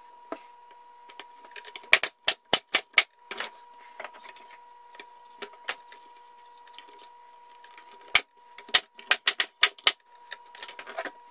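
Pneumatic nail gun firing fasteners into a wooden hive cover frame: a quick run of about five shots about two seconds in, then about six more starting about eight seconds in.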